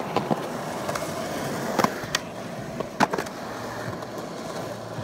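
Skateboard wheels rolling on rough concrete, a steady gritty noise broken by a few sharp clacks about two and three seconds in.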